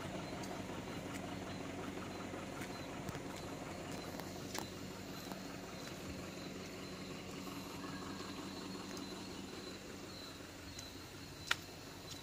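Truck engine idling, a low steady hum that slowly fades, with a few sharp clicks; the loudest click comes near the end.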